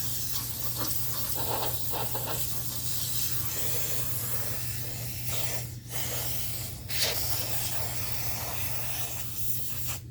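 Aerosol brake cleaner spraying in a long hiss onto the saw's parts, broken by two short pauses about six and seven seconds in and cut off near the end.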